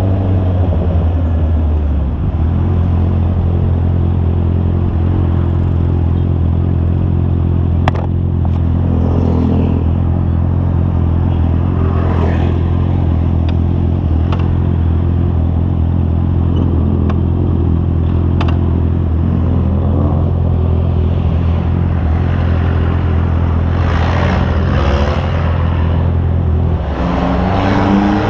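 Honda CB650R's inline-four engine running at a steady speed while the motorcycle cruises, then rising in pitch as it accelerates near the end. A sharp click about eight seconds in.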